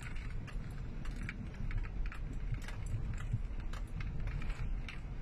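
Cabin sound of a Hyundai Grand Starex with its D4CB common-rail diesel being driven on a road test: a steady low rumble of engine and road noise, with light, irregular rattling clicks.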